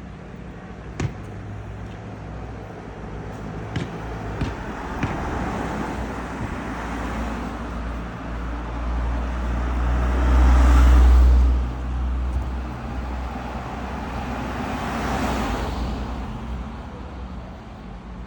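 Road traffic: motor vehicles passing, one swelling to a loud low rumble about halfway through and a second passing a few seconds later, with a few sharp clicks early on.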